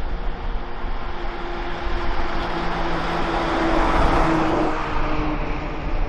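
A box truck drives past close by. Its engine and tyre noise swells to a peak about four seconds in and then fades.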